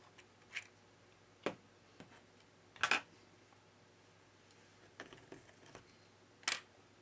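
A handful of separate light clicks and taps of plastic opening cards and a plastic pry tool against a smartphone's frame and glass back cover as the cover is worked loose, the loudest about three seconds in.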